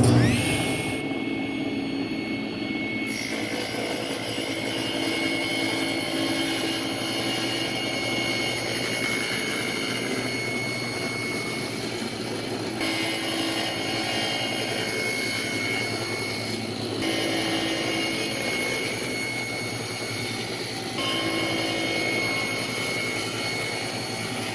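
Power saw running steadily with a high whine, spinning up with a quick rise in pitch right at the start; the sound shifts abruptly a few times.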